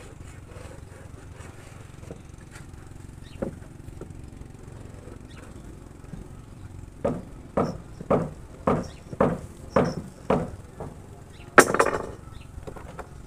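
Hammer blows on the timber of a wooden boat frame: a single knock, then about eight even blows at roughly two a second, followed by one louder clattering knock near the end. A low steady hum runs underneath.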